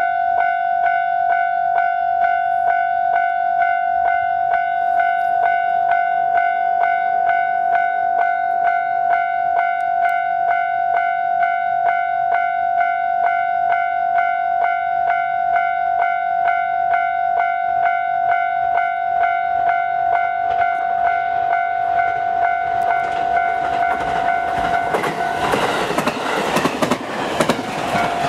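Japanese level-crossing warning bell ringing steadily in a rapid, even rhythm. From about 23 seconds in, a JR West 223 series 5500 electric train approaches and passes, its rumble and wheel clatter swelling over the bell near the end.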